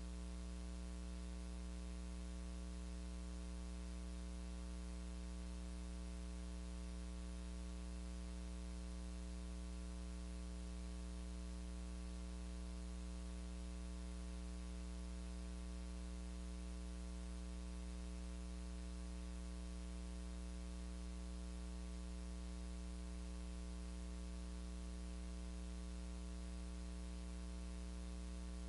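Steady electrical mains hum with a stack of buzzing overtones and a constant hiss, unchanging throughout.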